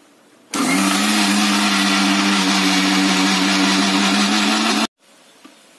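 Kitchen mixer-grinder (mixie) motor running at a steady speed, grinding sesame seeds and dried red chillies with a little water into a paste. It starts about half a second in and cuts off suddenly after about four seconds.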